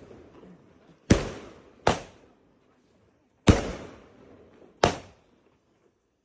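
Four sharp firework bangs at uneven intervals, the first about a second in and the last near the end, each trailing off in a short echo.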